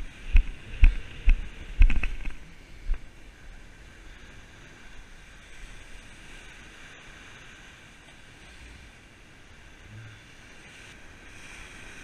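Small ocean waves washing onto a sandy beach, a steady hiss of surf with some wind. In the first three seconds there are about six low knocks on the microphone as the rod and reel are handled.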